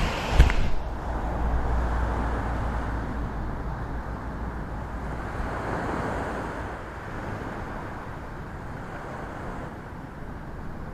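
Wind buffeting the microphone over a steady wash of surf on the reef, with a sharp knock about half a second in. The low rumble of the wind is strongest in the first half and eases after.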